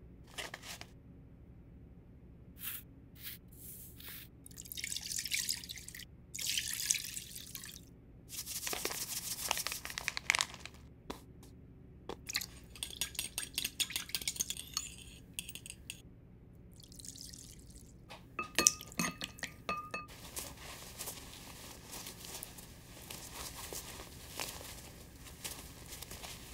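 Kitchen food-prep sounds in several short segments: ingredients poured into bowls, then a wire whisk beating batter in a bowl with rapid clicking, a few ringing clinks, and sticky dough being worked by hand with dense small squelching ticks near the end.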